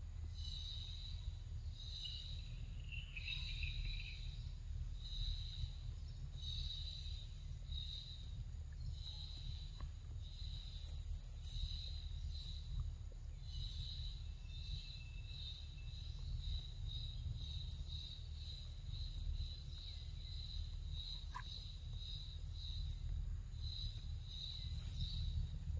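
Forest ambience: insects chirping in short pulses repeated about once or twice a second, with a steady high-pitched whine, over a continuous low rumble.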